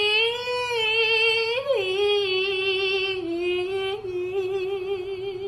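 A high voice holding one long sung 'aah' note that wavers slightly, swooping up and back down briefly about a second and a half in, then settling a little lower and fading slightly toward the end.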